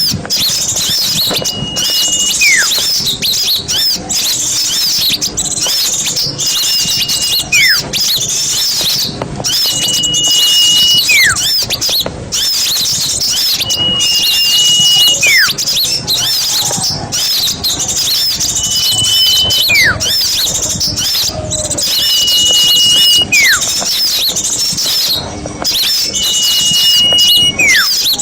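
Bird-lure recording of many small songbirds chattering densely at high pitch. About every four seconds a steady high whistle recurs, followed by a whistle that falls in pitch, as the recording loops.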